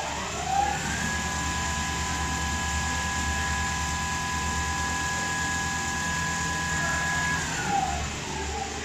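Richpeace automatic cushion case sewing machine running: a motor whine glides up to a steady pitch about a second in, holds for about six seconds, and glides back down near the end, over a fast low pulse.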